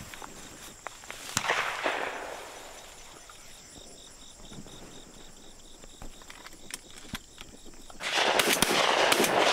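A single shotgun shot about a second and a half in, its report trailing off over most of a second. A loud rushing noise starts near the end.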